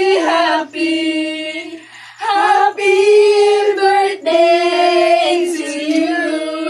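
A group of voices, women and children, singing a birthday song together in long held notes with short breaks between phrases.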